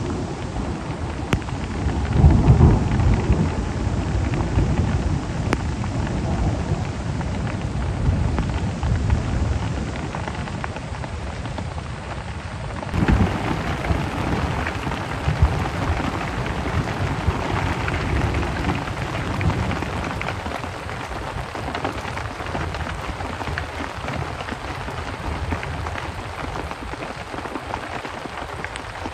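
Heavy rain falling steadily, with a low rumble of thunder strongest in the first few seconds. About halfway through, the rain sounds brighter and closer, falling on a tarp-roofed log shelter.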